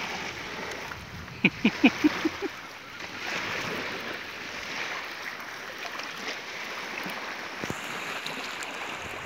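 Shallow sea water lapping and wind around fishermen wading. About a second and a half in comes a quick run of five or six short, sharp sounds.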